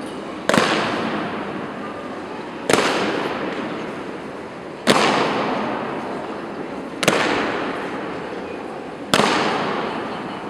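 Soldiers' boots stamping on a stone floor in a slow ceremonial march: a single loud stamp about every two seconds, five in all, each ringing on in a long hall echo.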